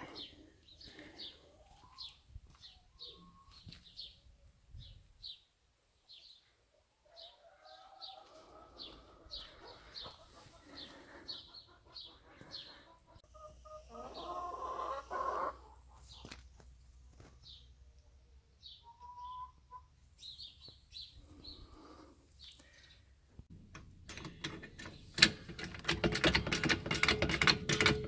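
A small bird chirping over and over, about two short high chirps a second, with lower calls, likely hens clucking, now and then. Near the end a loud, rapid run of clicking starts and drowns it out.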